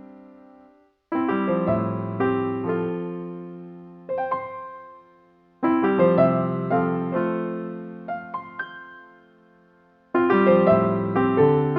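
Background piano music: phrases of struck chords and notes, each dying away before the next phrase begins.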